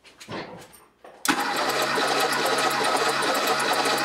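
The 1977 Porsche 911 Turbo's air-cooled 3.3-litre flat-six being turned over on its starter motor for a compression test. It starts cranking suddenly about a second in and keeps cranking at a steady, even rapid beat without catching.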